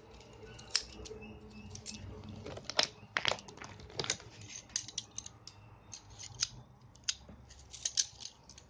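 Irregular sharp metallic clicks and snips from a handheld universal wrench being worked and turned over in the hands, some close together and some spread out.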